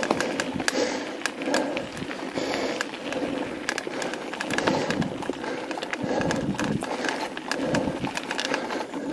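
Mountain bike rolling fast down a loose gravel and stone trail: tyres crunching over the stones, with a constant rattle and clatter of the chain and frame over the bumps.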